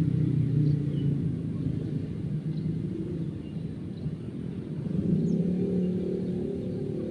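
A low engine drone running steadily, easing off in the middle and building again after about five seconds, with a few faint short chirps above it.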